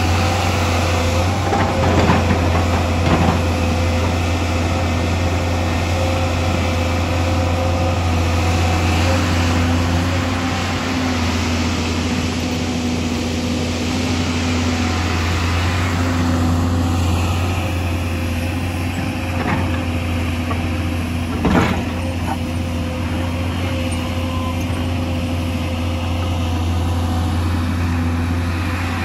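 Hyundai crawler excavator's diesel engine running steadily with a low drone and a steady tone above it as the machine digs and dumps soil and rock. A few short knocks, twice early on and once about two-thirds through, the last the loudest.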